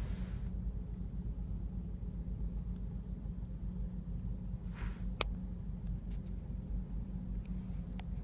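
Steady low rumble of a car's engine and road noise heard inside the cabin while driving, with a single sharp click about five seconds in.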